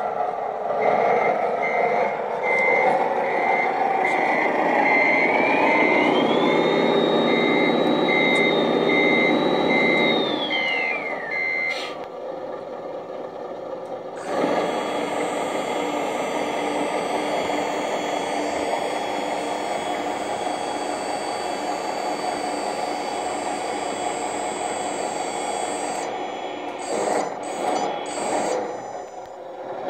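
Remote-control dump truck sounding reversing beeps, about two a second, over motor noise while it backs up. Partway through, a whine rises, holds and falls away. After a short break a steady machine hum runs on while the tipper body rises to dump its load of soil.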